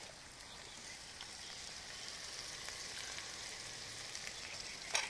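A faint, steady hiss, with one sharp click near the end.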